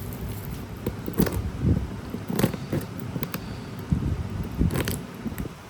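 Cardboard shipping box being handled and worked open: irregular scrapes, knocks and rustles, with a few sharper clicks about a second and a half in and again near the end.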